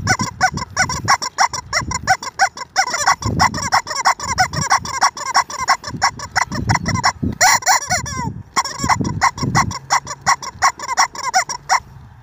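Rubber chicken swung and shaken by hand: the motion forces air through its voice box, so it lets out a rapid, rhythmic run of tiny squeaks with a brief break a little past two-thirds through.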